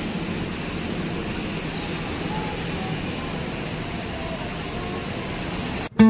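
Strong wind blowing through trees, a steady rushing noise with a low rumble underneath; it cuts off abruptly just before the end.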